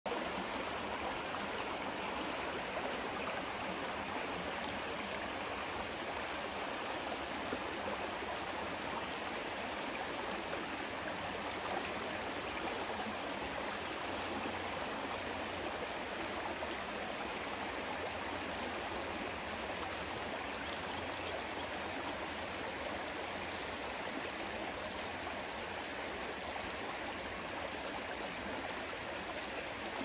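Shallow stream running over rocks in a small riffle: a steady, even rush of water.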